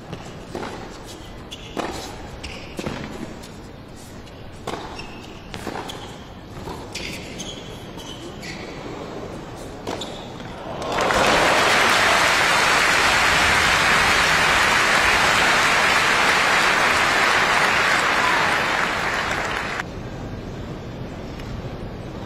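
Tennis rally on an indoor hard court, the racket hitting the ball about once a second. About eleven seconds in, a large arena crowd breaks into loud applause that lasts some nine seconds and then cuts off suddenly.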